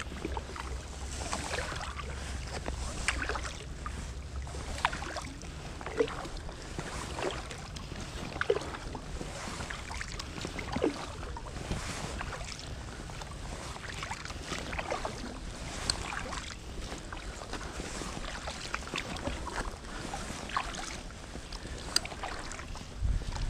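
Kayak paddle strokes in calm canal water: the blades dip and splash, with drips and small knocks every second or two. A low wind rumble sits on the microphone in the first few seconds.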